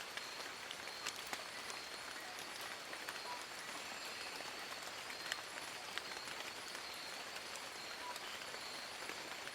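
Steady rain falling on forest foliage: an even hiss with many sharp, irregular drip ticks, and a faint steady high-pitched tone.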